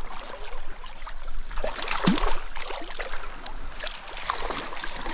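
Stream water sloshing and splashing close to the microphone over a steady rush of current, with a louder splash about two seconds in.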